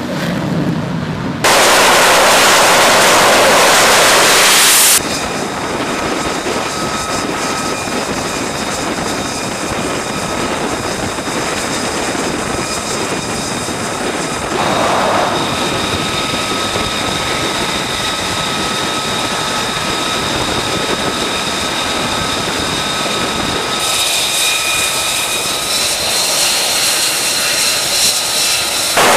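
F-35C Lightning II jet engines running on a carrier flight deck: a steady rushing roar with a high whine held at several fixed pitches. A much louder rush of noise lasts a few seconds near the start, and the whine shifts in pitch near the end.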